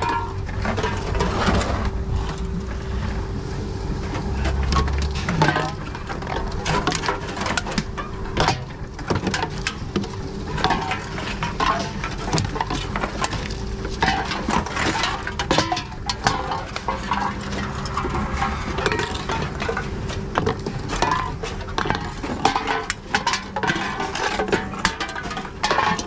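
Aluminium drink cans being fed by hand into a TOMRA reverse vending machine: repeated clinks and knocks of the cans against the intake and rollers as the machine takes them in, over a steady machine hum.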